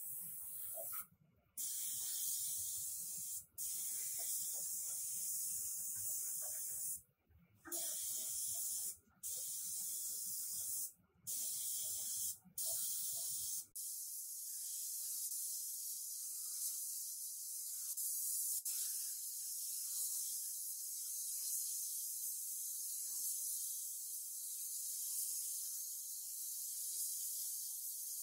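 Gravity-feed paint spray gun hissing as it sprays paint: a run of short passes of one to two seconds with brief gaps between them, then, about 14 seconds in, one long unbroken spray.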